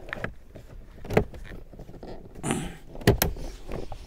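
Plastic lower dashboard cover of a Peugeot 306 being pushed into place, its clips knocking and snapping into the metal brackets, with some plastic rubbing. It gives a few scattered knocks and clicks, the sharpest pair about three seconds in.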